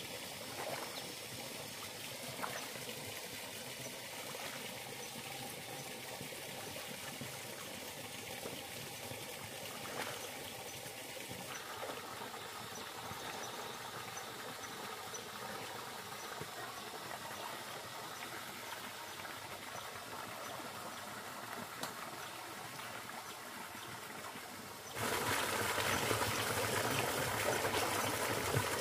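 Steady trickle and splash of a small stream of water pouring off the bank into a river, with a few faint splashes from hands working in the water. The running water gets louder about 25 seconds in.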